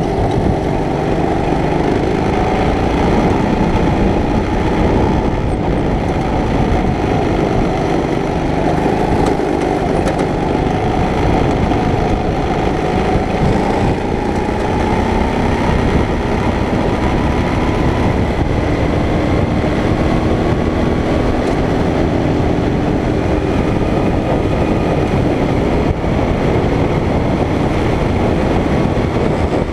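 Racing go-kart engine running hard under the onboard camera, its pitch rising and falling with the throttle through the corners and straights.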